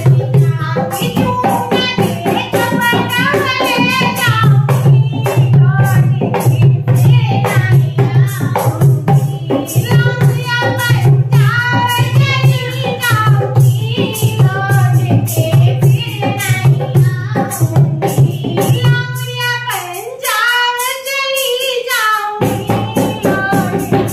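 A woman singing a languriya folk song while playing a dholak hand drum in a quick, steady rhythm over a low hum. About nineteen seconds in, the drum and hum stop and she holds a sung line alone for about three seconds before the drumming comes back.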